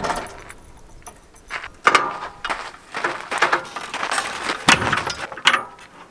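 Metal hitch and bumper hardware on a truck camper being handled: a series of separate clanks and rattles, some with a brief metallic ring.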